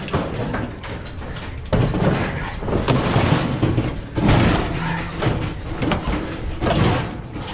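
Junk being rummaged through and pulled out of a curbside pile: irregular scraping, knocking and rustling of objects being shifted and dragged.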